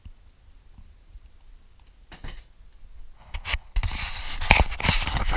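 Close handling noise: rubbing, scraping and sharp clicks. It is faint for the first two seconds, with a short scrape about two seconds in, then turns dense and loud from about four seconds in, as hands move close to the microphone.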